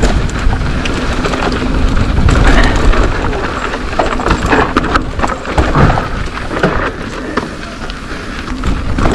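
Mountain bike riding down a dirt enduro trail: continuous rumble of wind and tyres on the ground, with frequent sharp knocks and rattles from the bike as it goes over bumps.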